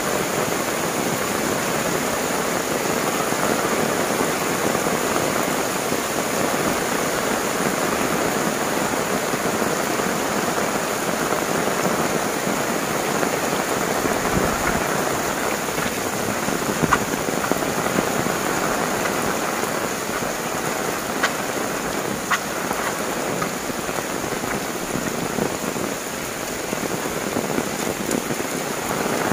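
Heavy downpour, a steady dense hiss of rain on clay roof tiles, banana leaves and the umbrella overhead, with a few sharp drop clicks in the second half.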